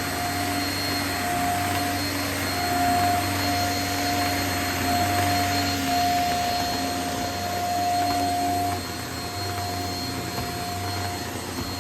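Vacuum cleaner running steadily, a constant whirring hum with a steady high whine; it drops a little in level about nine seconds in.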